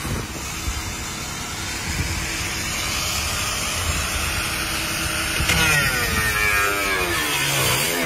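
Corded angle grinder running steadily at full speed. From about five and a half seconds its whine wavers and drops in pitch.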